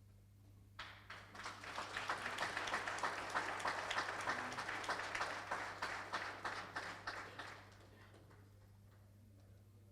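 Audience applauding: a round of clapping that starts about a second in, holds for several seconds and dies away about two seconds before the end.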